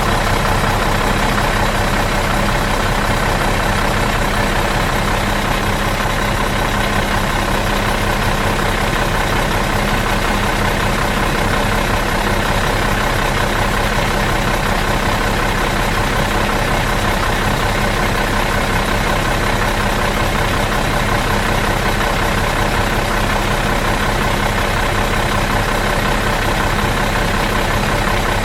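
Bus engine idling steadily out of gear, an even, unchanging running sound.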